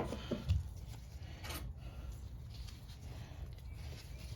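Faint handling noise of small mower parts: a light knock just after the start and a soft click about a second and a half in, with a little rubbing over a low steady hum.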